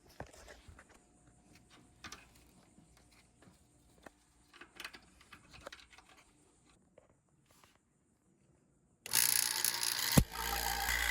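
Faint clicks and scrapes of hand work, then, near the end, a loud steady machine noise with a low hum starts abruptly, with a sharp knock about a second after it starts.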